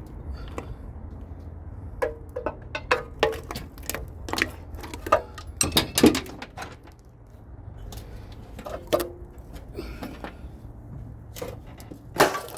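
Irregular metallic clinks and knocks of hand tools and parts being handled on a big-block V8 during teardown, some with a brief ring, the loudest cluster about halfway through.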